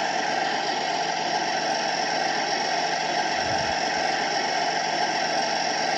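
Heng Long TK 7.0 sound board playing its simulated tank engine idle through the RC Tiger 1's newly fitted speaker, running steadily: the new speaker works.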